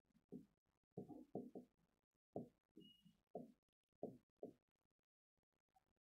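Near silence broken by faint, irregular taps, a few a second: a pen or stylus knocking on an interactive display board while writing.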